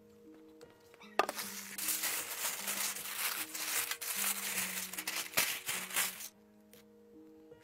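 Aluminium foil crinkling as it is folded and pressed over a tray, starting about a second in and stopping about six seconds in, over soft background music.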